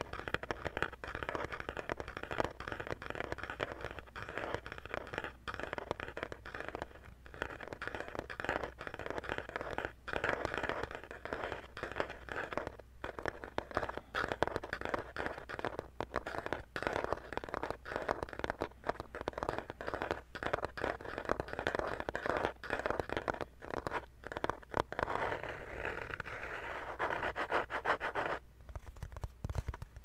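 Rapid, continuous tapping and scratching on plastic objects, with a brief pause near the end.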